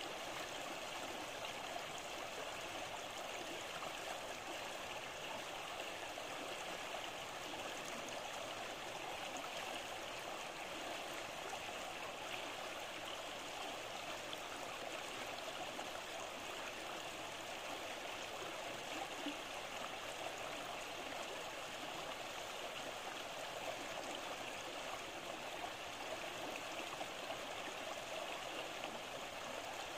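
Shallow stream running steadily over gravel and stones, a continuous even rush of water.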